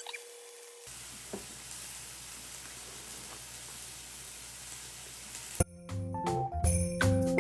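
Food sizzling in a hot frying pan, an even hiss that starts about a second in. About five and a half seconds in it gives way to louder light background music with bell-like notes.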